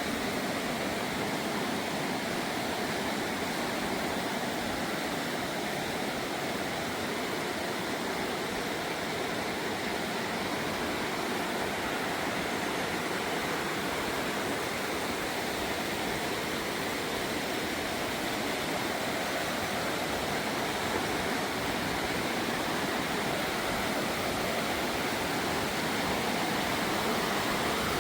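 Steady rush of a fast-flowing river, an even noise that does not change.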